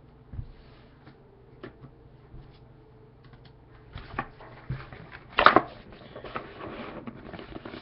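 Hands handling trading cards and their packaging: scattered light clicks and taps, then a louder rustle about five and a half seconds in, followed by more rustling.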